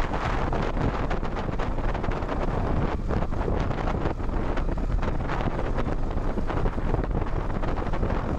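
Wind buffeting the microphone while a Yamaha R15M motorcycle's 155 cc single-cylinder engine runs underneath, the bike ridden along a rough dirt track.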